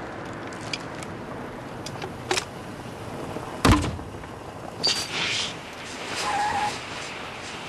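Steady low rumble of idling vehicles, with a few light clicks and one sharp, loud thump a little under four seconds in.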